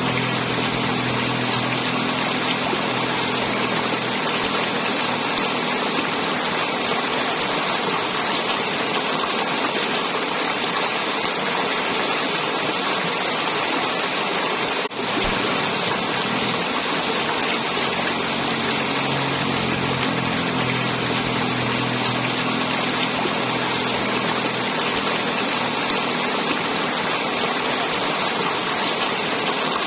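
River water flowing and gurgling in a steady rush. A low hum comes and goes underneath, and the sound drops out for an instant about halfway through.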